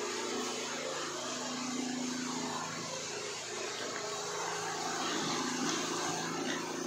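Petrol engine driving a water-well drill bit, running steadily in the background.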